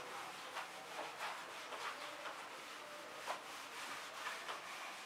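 Faint scrubbing of a whiteboard eraser wiping marker off a whiteboard in short, irregular strokes, with one sharper knock about three seconds in.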